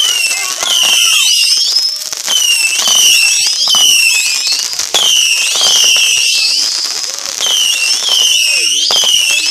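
Whistling fireworks going off one after another: shrill rising and falling whistles, about one a second and overlapping, over steady crackling.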